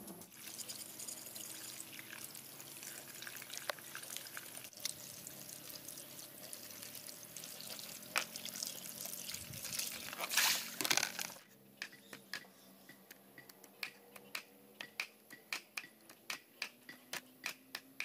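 Water running from a hose and splashing in a plastic basin while a singed bamboo rat carcass is rubbed clean under it. About eleven seconds in, this stops and gives way to a knife chopping meat on a wooden block, about three even chops a second.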